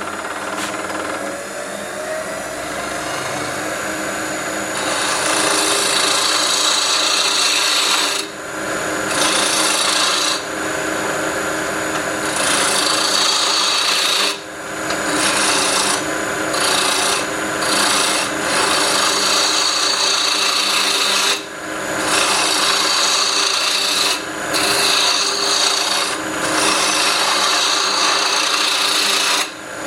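Wood lathe running with a steady motor hum while a turning tool scrapes and cuts the spinning stabilized buckeye burl pen blank. The cutting comes in passes, getting louder about five seconds in and breaking off briefly every couple of seconds as the tool lifts from the wood.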